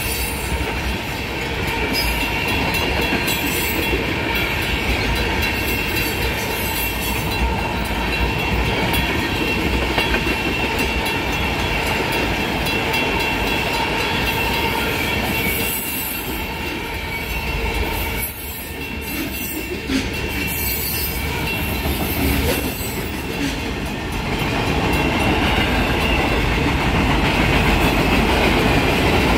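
CSX freight train's cars rolling past at speed over a grade crossing: a steady, loud run of wheels on rail, with a steady high tone over it.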